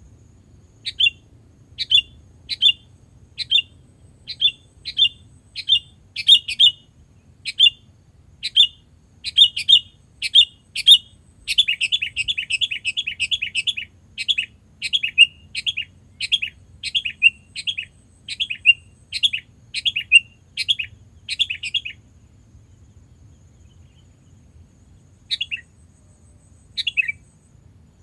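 Sooty-headed bulbul calling: short chirps repeated about one and a half times a second, breaking into a fast chattering run about halfway through, then stopping before two last calls near the end.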